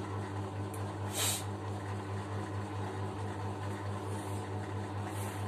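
Steady low hum in a small room, with one short hiss about a second in.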